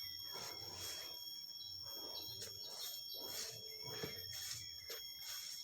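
Sand being shaken through a sand sifter's screen, a rhythmic swishing of about two strokes a second.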